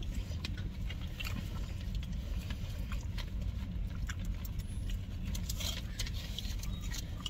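Steady low rumble of a car idling, heard inside the cabin, with scattered small clicks and crinkles of people eating sandwiches from their wrappers.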